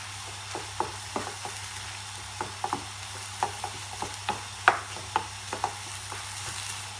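Chicken cubes in spiced oil sizzling in a pan over a high flame while being stirred. A utensil knocks and scrapes against the pan in irregular clicks over the steady sizzle.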